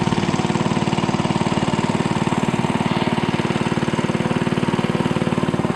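Motorboat engine running steadily at a constant speed while the narrow wooden boat is under way, with a fast, even pulse.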